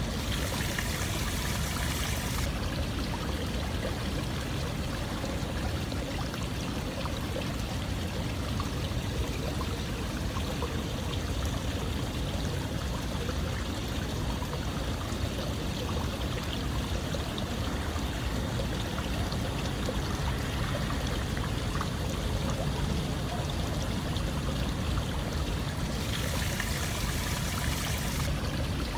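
Steady running water, like a flowing stream, with a constant rushing hiss. The hiss brightens for the first couple of seconds and again near the end.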